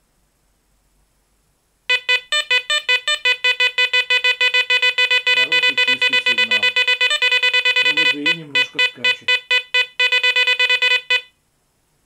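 Garrett ACE Apex metal detector sounding its target tone as a Soviet commemorative 1-rouble coin is passed over the coil. The beeps repeat rapidly, several a second, for about nine seconds, starting about two seconds in and cutting off near the end. The tone signals a solid non-ferrous target, which the display reads at a VDI of about 55 to 59.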